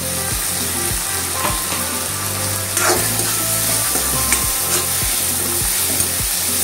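Chopped tomatoes and green chillies sizzling in hot mustard oil in a steel wok, with a metal spatula stirring and scraping against the pan a few times.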